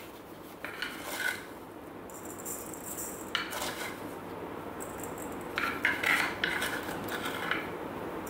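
Light knocks and clinks of a wooden salt pot and its lid being handled over a stainless steel mixing bowl. They come in a few scattered clusters and are busiest about six seconds in.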